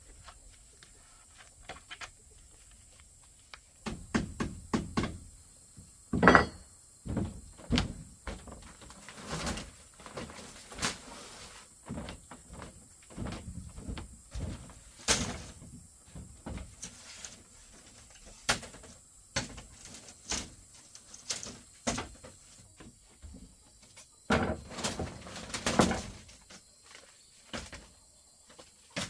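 Irregular knocks and thuds of bamboo being handled and struck during house building, with a burst of louder strokes about six seconds in and another cluster near the end.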